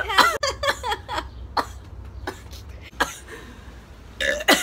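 A woman's coughing fit: a string of short, irregular coughs, with a bit of voice at the start and again near the end.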